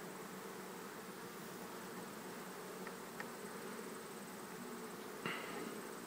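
A honeybee colony humming steadily in a Langstroth hive, with a light knock about five seconds in.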